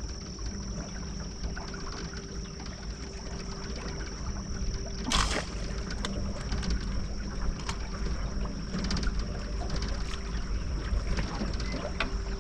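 A boat's motor humming steadily, with water trickling and splashing around the boat. There is one louder splash or knock about five seconds in.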